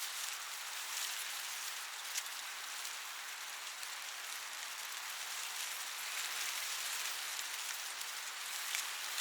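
Wind blowing through a cornfield: the corn leaves rustle in a steady high hiss with scattered small crackles, swelling a little near the end.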